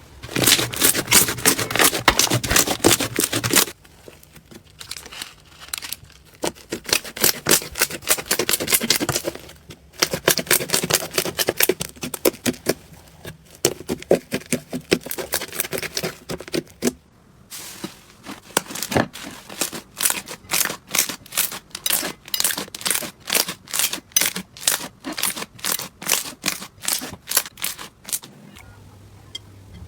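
Hands working slime, giving dense runs of sharp clicking and crackling pops. The clicks change pace and loudness several times, with brief quieter gaps between runs.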